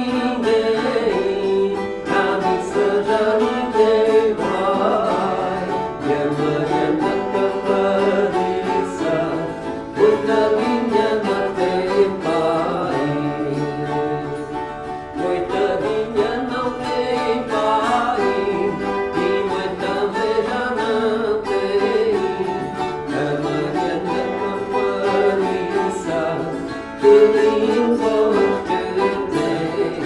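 Viola campaniça and a second ten-string viola playing a traditional Alentejo moda, the strings plucked and strummed steadily, with a man's voice singing a wavering melody over them.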